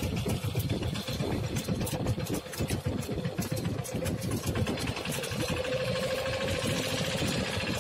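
Fishing boat's engine running steadily, with a rapid, even firing beat.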